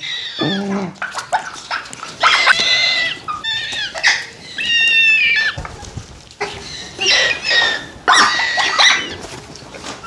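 Baby parrots giving a series of short, high begging calls and squawks, about five in a row, some falling in pitch, as they clamour to be hand-fed formula.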